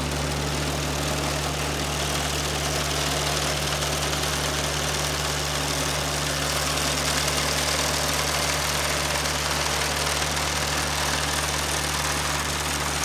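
John Deere 1025R subcompact tractor's three-cylinder diesel running steadily under load, driving a sickle bar mower whose reciprocating knife clatters as it cuts standing grass.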